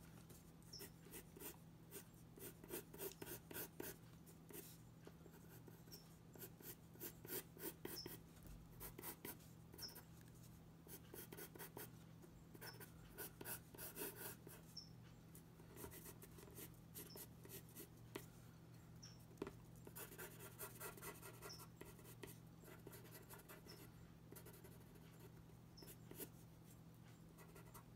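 Faint scratching of a pencil sketching on paper, in runs of quick short strokes with brief pauses between them.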